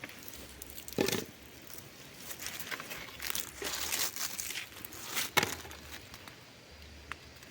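Cowpea plants rustling and crackling as they are handled to pick the pods, with irregular crunches and snaps of dry leaves and pods, the sharpest about a second in and again near the end.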